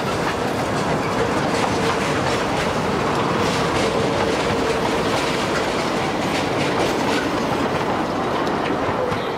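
Open passenger carriages of a 2 ft gauge steam railway rolling past on the rails, the wheels clicking over the rail joints in a steady clickety-clack. A faint wheel squeal is heard for a few seconds in the middle.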